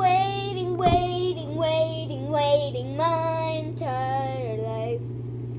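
A young girl singing a melody into a running electric fan, with the fan's steady hum underneath; the singing stops near the end.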